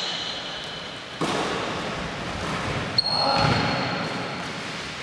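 Basketball bouncing and knocking on a wooden gym floor, echoing in the large hall: a sharp knock about a second in, then about three seconds in a sharp click followed by a high ringing tone, with players' voices faint underneath.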